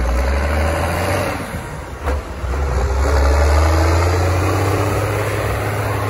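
Ford 8210 tractor's six-cylinder diesel engine running steadily as it drives past with a mounted plough, growing louder as it draws close and peaking a little past halfway.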